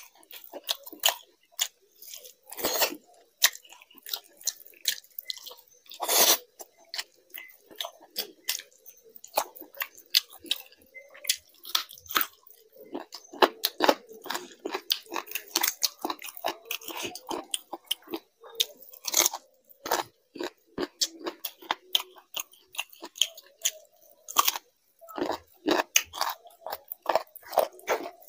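A person chewing and smacking wet mouthfuls of chicken curry and fried rice, with many quick, irregular smacks and clicks.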